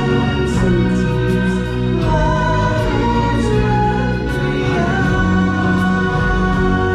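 Music with a group of voices singing over instrumental backing.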